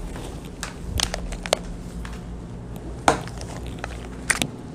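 Power adapter and cables being handled and set down inside a cardboard box: scattered light knocks, clicks and rustles, a few sharper clicks among them.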